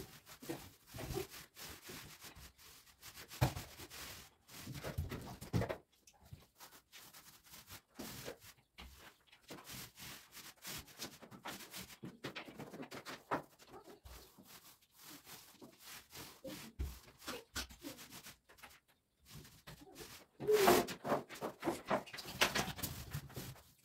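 Paint roller on an extension pole rolling paint onto a wall, rubbing in uneven back-and-forth strokes, with a louder stretch near the end.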